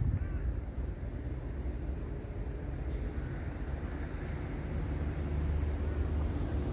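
Strong wind blowing across the microphone, a steady low rumble.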